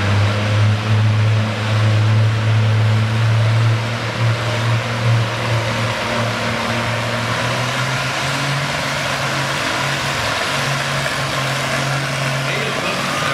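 Oliver 77 row-crop tractor's engine running hard under load as it pulls a weight-transfer sled, a steady low drone whose pitch steps up a little about seven seconds in.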